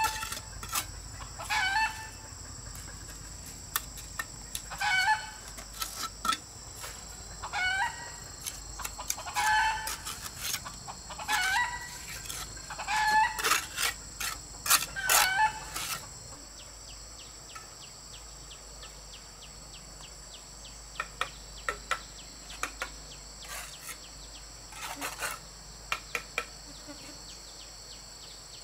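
Chickens clucking, short calls coming every second or so through the first half, over a steady high insect drone. A few sharp clicks or taps follow in the second half.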